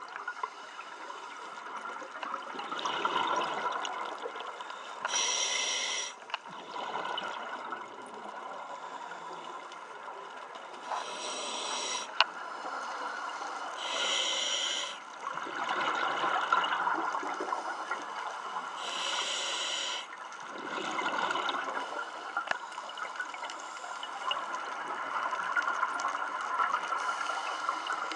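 Scuba diver breathing through a regulator underwater: a short hiss of inhalation every few seconds, each followed by a longer gurgle of exhaled bubbles.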